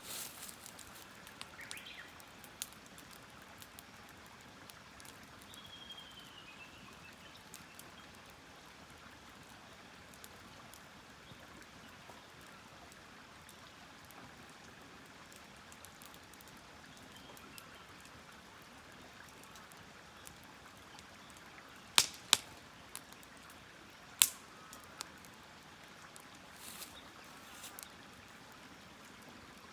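Wood campfire burning with a faint steady hiss, broken by a few sharp pops, three of them loud about two-thirds of the way through.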